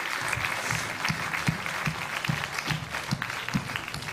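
Studio audience applauding: a steady, dense patter of many hands clapping.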